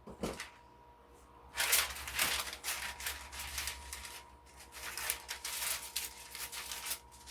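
Kitchen handling noise while chicken is being prepared: a short knock just after the start, then from about a second and a half in a busy run of rustling and crinkling. A faint steady high hum runs underneath.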